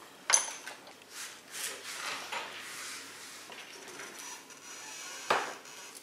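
Metal parts and tools handled at a workbench vise: a sharp metallic clink with a short ring, then rustling and small knocks, and a louder knock about five seconds in.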